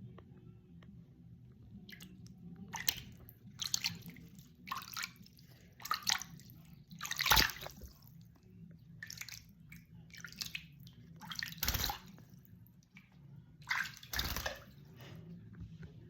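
Water splashing and sloshing in a small basin during a pet bird's bath, in irregular bursts with a few louder splashes.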